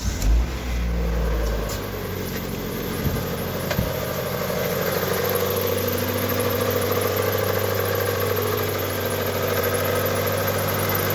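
Mitsubishi 4B11 2.0-litre four-cylinder engine running just after start-up, revving up briefly in the first couple of seconds and then settling to a steady idle. It runs noisily, which the mechanic puts down to worn, scored cylinders.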